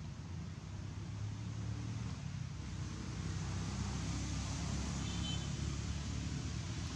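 Steady low rumble of motor traffic running throughout, over a light hiss, with a brief faint high chirp about five seconds in.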